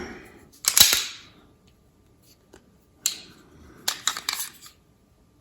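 Sharp metallic clicks and snaps of a 9mm semi-automatic pistol being handled for a safety check: one loud snap about a second in, then a few more clicks near three and four seconds.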